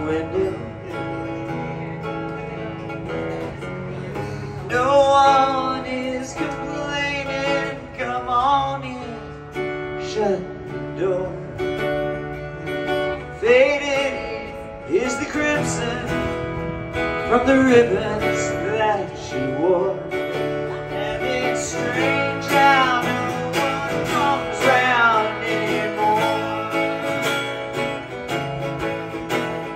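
Live solo acoustic guitar strummed and picked while a singer sings with it, the voice sliding and wavering in long held lines.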